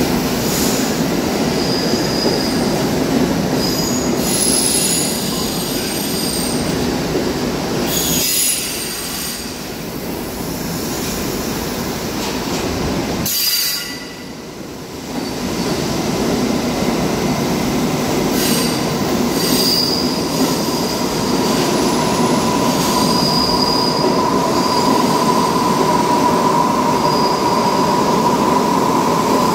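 R68 subway cars running through a station without stopping, a continuous loud rumble of wheels on rail. High wheel squeal comes and goes, the sound dips briefly about halfway through, and a steadier squeal sets in for the last several seconds.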